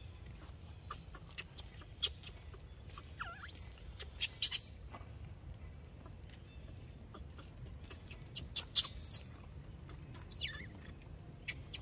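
Baby monkey squealing in short, high-pitched cries that bend up and down in pitch, loudest a little over four seconds in and again near nine seconds: the cries of an unhappy infant at its mother's side.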